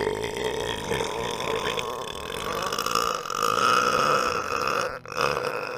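A man's long, drawn-out burp lasting about five seconds, followed after a brief break by a second, shorter burp.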